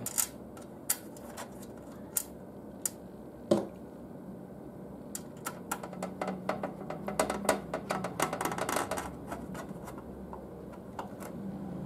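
Small screws being set into a DVR's sheet-metal bottom panel and driven in with a hand screwdriver to hold the hard disk: a few separate clicks and taps, then from about five seconds in a quick run of small clicks as the screw is turned.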